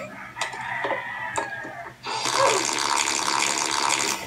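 A group of people laughing, growing into loud, dense noise about two seconds in.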